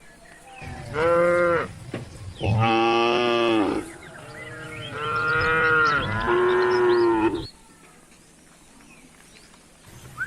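Cattle mooing: four long, drawn-out calls one after another over the first seven or so seconds, the last two nearly back to back.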